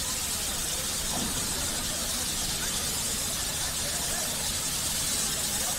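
Steam locomotive hissing steadily as steam escapes while it stands at the platform.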